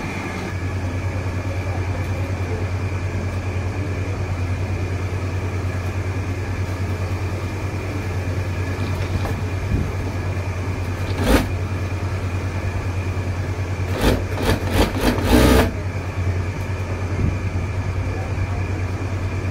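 Juki industrial sewing machine's motor humming steadily, with a single sharp clack about eleven seconds in and a run of short clattering bursts around fourteen to fifteen seconds in as the needle stitches.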